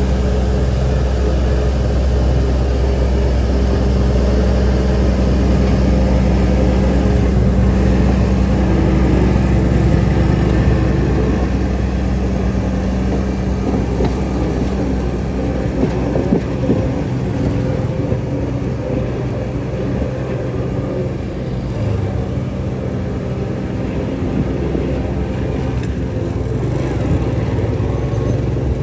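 Heavy diesel construction machinery running steadily under work, a continuous low engine drone that eases off slightly about eleven seconds in.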